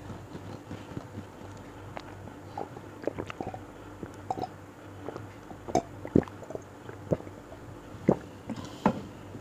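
Close-miked mouth sounds of a woman sipping and swallowing water from a glass: scattered wet lip smacks and clicks, a few louder ones in the second half.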